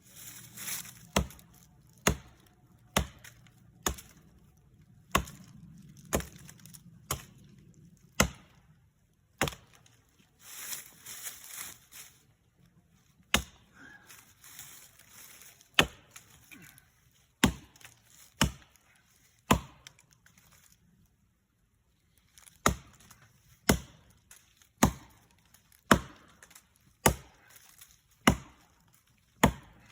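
Axe chopping into a tree: sharp, loud strikes about once a second, with two short breaks partway through.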